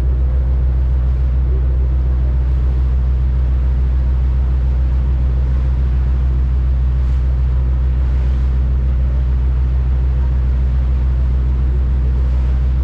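Boat engine running steadily underway, a deep even drone heard from on board.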